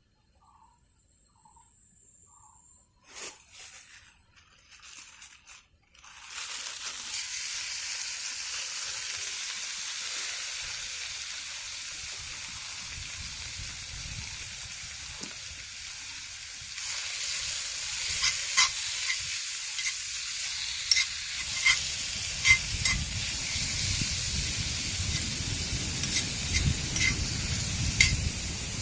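Food frying in a cast-iron pan: after a few knocks, a steady sizzle starts suddenly about six seconds in and grows louder in the second half, with sharp spitting pops of fat.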